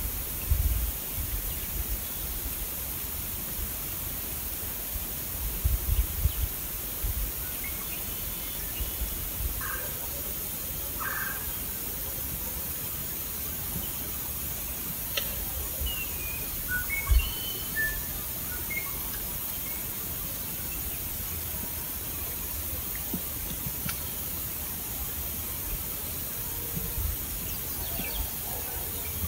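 Faint bird calls, a scattering of short chirps and whistles mostly in the middle, over a steady hiss with occasional low rumbles.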